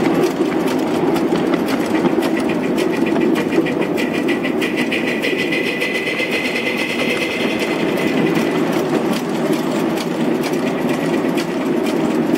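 Little Engines 2-6-0 live steam locomotive and its ride-on cars running along a miniature railway track: a steady rumble with rapid, even clicking and a thin steady high tone.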